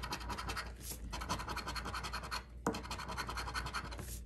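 A coin scratching the coating off a lottery scratch-off ticket in rapid short strokes, stopping briefly twice.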